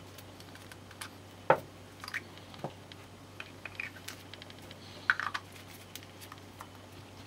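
Small plastic clicks, taps and rubbing as a Nendoroid figure's head parts, the hair piece and face plate, are handled and pressed together by hands in nitrile gloves. The sharpest clicks come about a second and a half in and about five seconds in.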